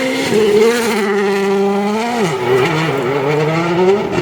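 Rally car engine at high revs, the pitch falling sharply about halfway through as it comes off the throttle, then climbing steadily again under acceleration.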